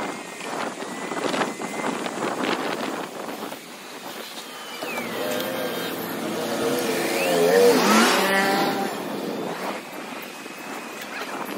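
Sped-up street traffic heard from a moving bicycle, with rushing wind and road noise. A motor vehicle passes close through the middle, its engine pitch gliding up and down and loudest about eight seconds in.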